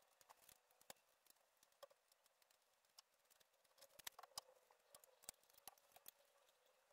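Faint, irregular clicks and light taps of tools and parts while a bike is stripped down, barely above near silence.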